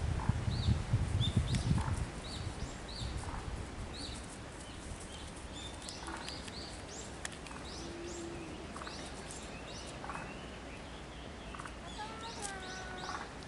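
Small birds chirping, many short high calls scattered throughout. A low rumble runs under the first two seconds.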